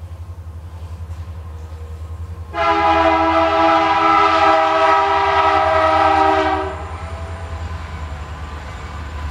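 Train passing: a low, pulsing locomotive rumble, then an air horn blowing a chord of several tones for about four seconds, starting suddenly and cutting off.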